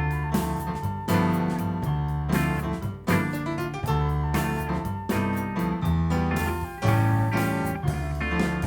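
Instrumental music on a keyboard with an electric-piano sound, playing chords over a bass line, with a new chord struck about once a second.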